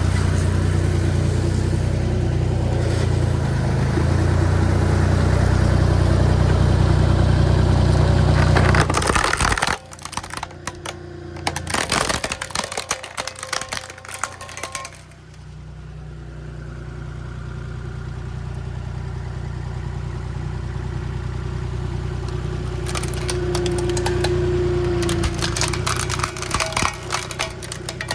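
Road roller engine running with a steady low drone, which drops away abruptly about ten seconds in. A spell of cracking and snapping follows, then the engine sound builds again slowly, with more sharp crackles near the end.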